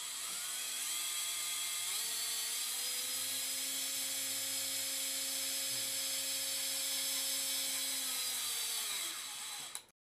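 Surgical power drill driving a self-tapping locking screw through a bone plate into a bone model. Its motor spins up over the first two seconds, runs steadily, then its pitch falls near the end before it stops.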